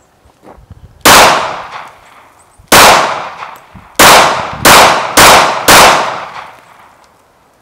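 Glock pistol fired six times: two single shots about a second and a half apart, then four quicker shots about half a second apart. Each shot is followed by a fading echo.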